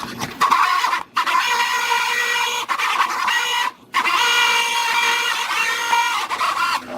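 A small power tool's electric motor running with a steady whine, cutting out briefly twice and starting up again.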